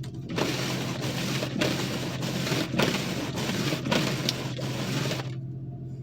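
Windshield wipers scraping back and forth over a frosted, icy windshield in rhythmic strokes, stopping suddenly about five seconds in. Under it a V8 engine idles with a steady low hum.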